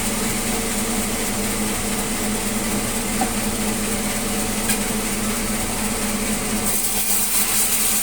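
Sawmill saw running steadily with a constant hum and a hiss through the melinjo log. Near the end, a brighter, higher hiss comes in.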